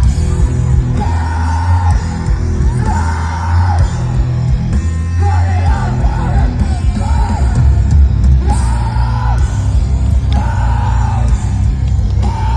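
Loud live rock music: a heavy bass and drum backing with a singer yelling a series of held, sustained lines.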